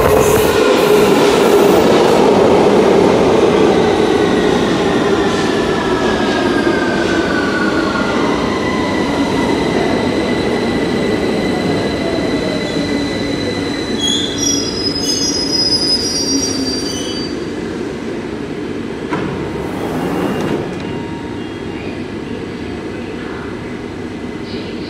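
London Underground 2009 Stock Victoria line train pulling into the platform and braking to a stop. The whine of its traction motors falls steadily in pitch as it slows, and high wheel and brake squeals come near the stop. About three-quarters of the way through there is a short rush as the doors open, and then the stationary train hums steadily.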